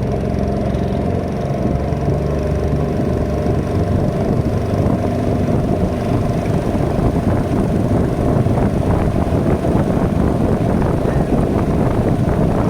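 Long-tail boat's engine running steadily under way, a low, even hum that grows rougher through the crossing.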